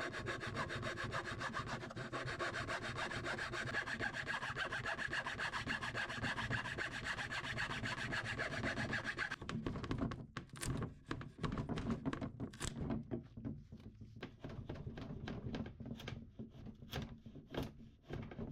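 Wood of a mahogany dresser drawer being cut back to a straight edge: a fast, even rasping scrape that stops about nine seconds in, followed by scattered light knocks and clicks.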